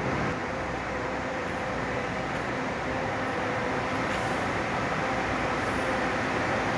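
Intercity coach's diesel engine running steadily, a constant rumble with a faint hum.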